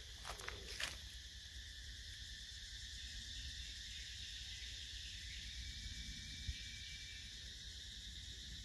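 Steady high-pitched insect chorus in forest, an even buzzing drone. A couple of brief sharp sounds stand out a little under a second in.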